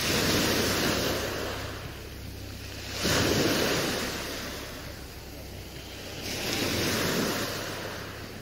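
Sea waves washing in, one about every three seconds, each surging up suddenly and then fading away, over a faint low steady hum.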